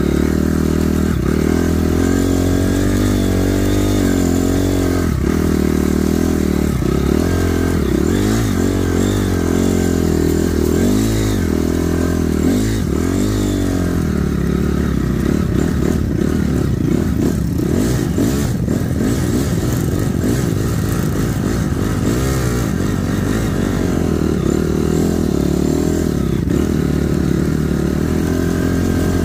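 Honda CRF250 dirt bike's single-cylinder four-stroke engine being ridden, revving up and down over and over, its pitch rising and falling with the throttle.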